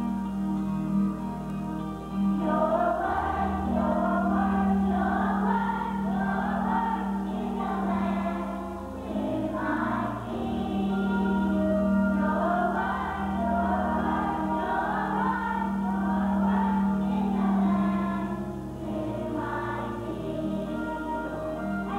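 Large children's choir singing together over sustained low instrumental accompaniment.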